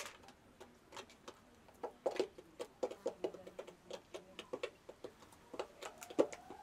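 An irregular series of short clicks and taps, a few a second, with a sharper click at the very start.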